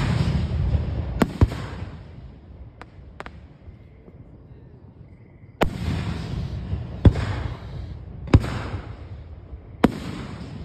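Aerial fireworks shells bursting overhead: about eight sharp bangs, each trailing into a lingering crackle. There is a quieter lull in the middle, then a fresh volley of bursts from about five and a half seconds in.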